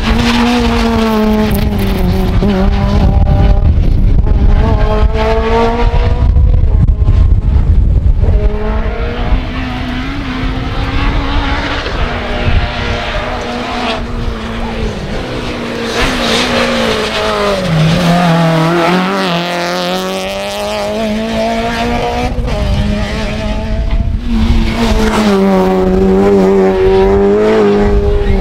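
Rally cars at full throttle on a tarmac stage, one after another, engines revving high and dropping as they shift and brake for the bends.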